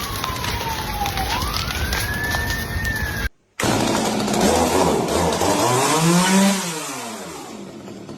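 Two clips, cut together. First, a single tone slides down and then back up over a noisy background. After the cut, an engine revs up and falls back down once, over a rough noisy background, and fades away near the end.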